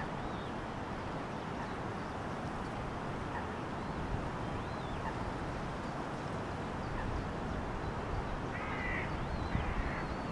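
Eurasian coot chicks giving thin, high begging peeps every few seconds over a steady background hiss, with a louder, lower call about nine seconds in.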